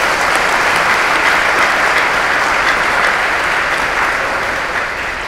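Audience applauding steadily, beginning to die down near the end.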